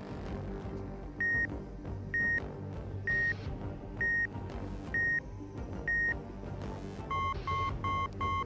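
Electronic beep sound effects over background music: six single high beeps about once a second, like a machine processing, then four quicker, lower and buzzier beeps near the end, an error signal for a wrong result.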